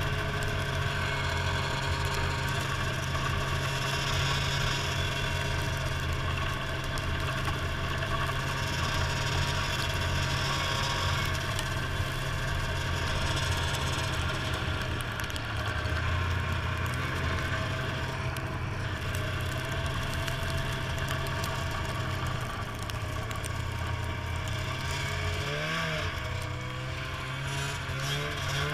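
Snowmobile engine running steadily under way. Near the end the engine pitch dips and rises a few times as the throttle changes.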